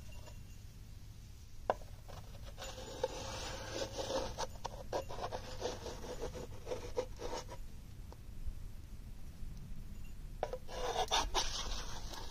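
Gloved hands scraping and smearing wet clay around a shallow metal pan, in two spells of rubbing and scraping, the second near the end.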